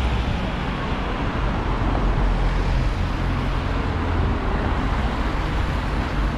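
Wrightbus StreetDeck double-decker bus on the move: its Daimler OM936 7.7-litre six-cylinder diesel runs steadily under a haze of road and tyre noise.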